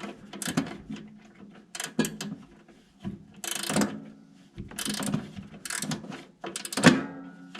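A screw being turned with a ratcheting hand driver: a series of irregular ratcheting clicks and scrapes.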